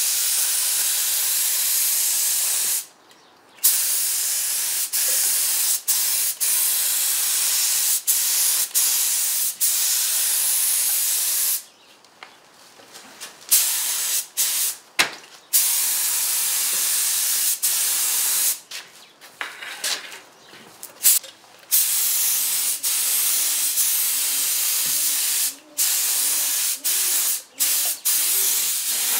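Compressed-air spray gun with a siphon-feed cup hissing as it sprays paint in long passes. The hiss stops briefly each time the trigger is let go, with longer breaks about three seconds in, near the middle and about two-thirds of the way through.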